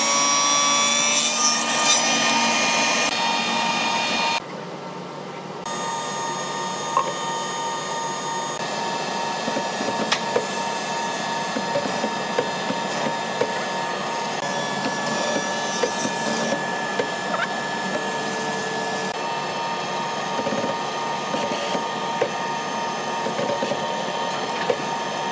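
Woodworking machine with a spinning cutter head running with a steady whine for the first few seconds. After a cut, a hollow-chisel mortiser runs with a steady motor hum and scattered small ticks as it bores square mortises into a hardwood beam.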